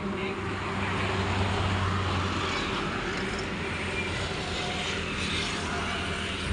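Water-cooled diesel engine driving an air compressor, running steadily with a low hum, which is heavier for the first couple of seconds.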